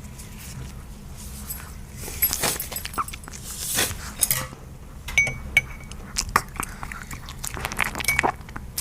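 Yorkshire terrier puppy eating from a dish: sharp clinks of teeth and muzzle against the dish mixed with chewing, coming as a run of quick clicks from about two seconds in, a few of them ringing briefly.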